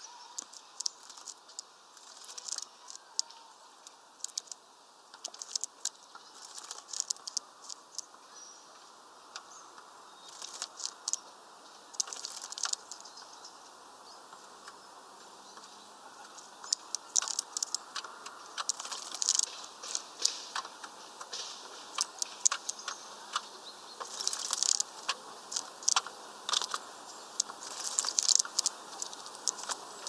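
A starling bathing in a shallow plastic tray of water: bouts of splashing and fluttering wings, with droplets pattering. The bouts come more often and louder from about halfway through.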